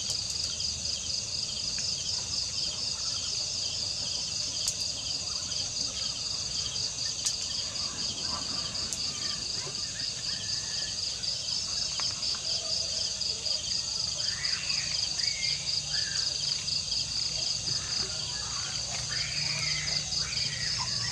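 A chorus of night crickets chirping in a high, steady, rapidly pulsing trill at two pitches.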